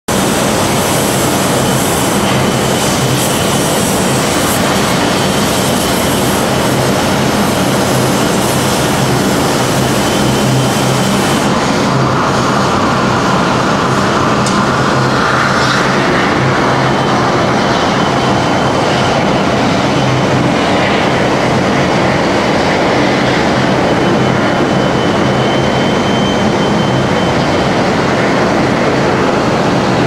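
Loud, steady industrial noise from an ISASMELT lead smelting furnace being tapped: a continuous hiss over a low hum, the highest part of the hiss falling away a little under halfway through.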